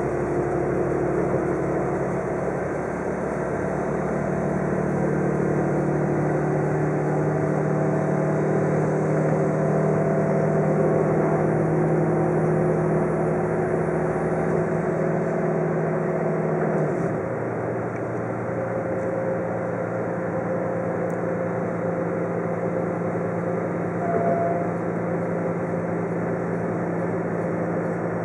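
Diesel railcar engine running under power, heard from inside the passenger cabin as a steady drone over rail and running noise. About two-thirds of the way in, the engine note drops suddenly to a lower, quieter hum.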